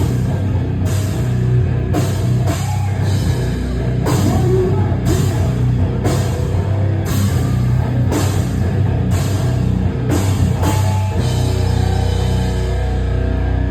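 Live hardcore band playing loud, heavy rock with distorted guitars, bass and a pounding drum kit with crash cymbal hits. About eleven seconds in, the drums stop and a held chord rings on.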